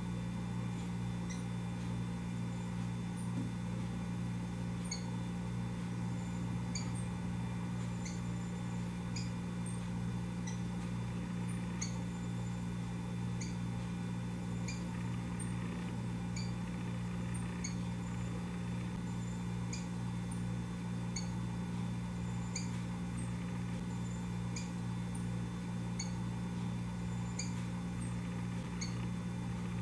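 Rufous-collared sparrow (tico-tico) giving short, high chip calls, about one or two a second, over a steady low hum.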